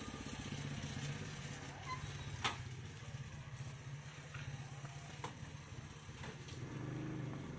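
Old stationary diesel engine with a large flywheel running slowly, a steady low rhythmic beat, with a few sharp metallic clicks, the loudest about two and a half seconds in.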